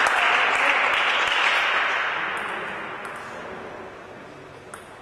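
Audience applause in a large hall after a point in a table tennis match, dying away over the first few seconds. A couple of sharp taps sound near the end.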